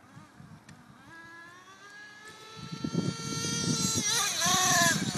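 Nitro (glow-fuel) engine of an RC car running at high revs: its buzzing pitch climbs steadily and grows louder from about a second in, then wavers up and down with the throttle near the end.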